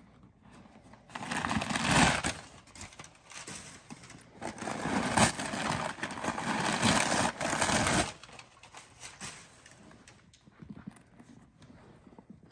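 Handling noise from a full-grain pebbled leather tote backpack: the leather rustling and rubbing with small knocks as the bag is opened and moved about, in two louder spells before it quiets down after about eight seconds.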